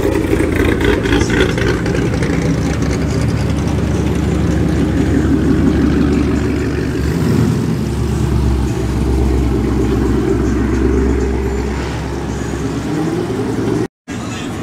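Muscle cars (Ford Mustangs and Dodge Chargers) driving past one after another with loud exhausts, the engine pitch rising as they accelerate away. The sound cuts out briefly near the end.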